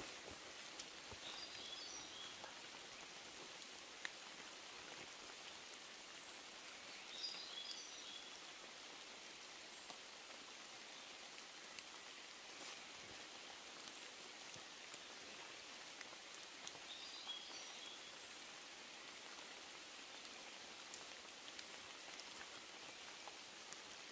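Faint light rain falling on forest foliage, with scattered tiny drop ticks. A short high chirping call comes four times, several seconds apart.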